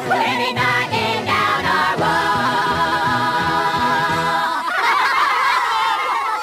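Group singing with backing music, settling into a long held chord. About four and a half seconds in it gives way to high, wavering, voice-like sounds.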